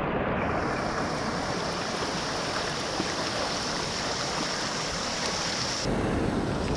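Steady rush of water falling from a small waterfall, its tone shifting slightly about half a second in and again near the end.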